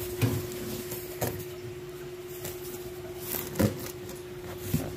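A few separate knocks and handling sounds of a cardboard appliance box being moved on a tile floor, over a steady faint hum.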